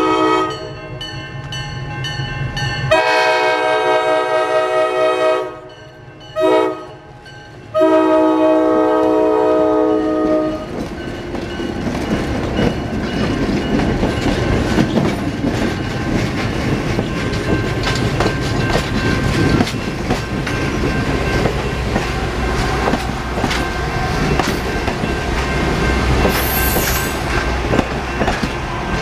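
Diesel locomotive air horn sounding a chord in a long, long, short, long pattern, the grade-crossing signal, ending about ten seconds in. The train then passes close by: engine rumble and steel wheels clicking over rail joints as the passenger cars roll past.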